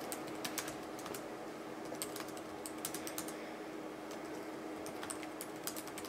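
Typing on a computer keyboard: irregular quick key clicks, some strokes sharper than others, over a faint steady hum.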